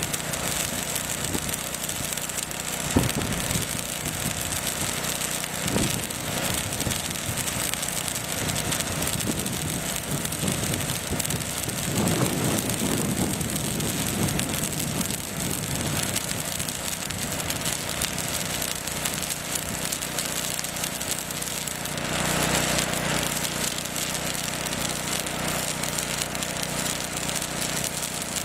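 Flux-cored wire welding arc burning steadily on structural steel, a continuous sizzling hiss with fine crackle and a sharp pop about three seconds in.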